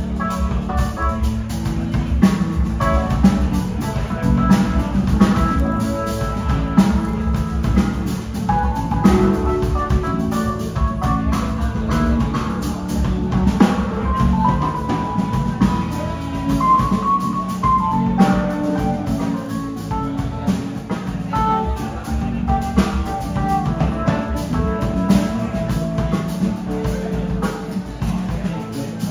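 A live band playing an instrumental passage: electric guitar, bass guitar, keyboard and drum kit, with a steady beat under a held, wandering melody line.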